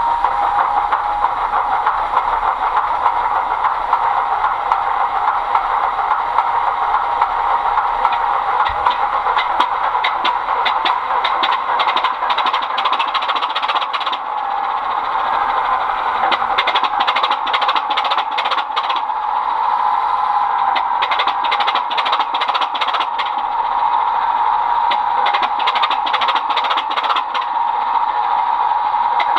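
Model Class 25 diesel locomotive's DCC sound decoder playing a diesel engine running, heard through the model's small speaker: thin, with almost no bass and a steady droning tone, with many fine clicks throughout.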